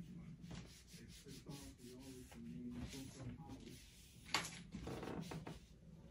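Rubbing and handling noises as a phone tripod is adjusted and set in place, with one sharp click about four seconds in.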